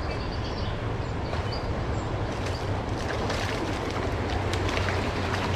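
A hooked largemouth bass splashing at the water's surface as it is reeled in, a run of short sharp splashes in the second half, over a steady low rumble.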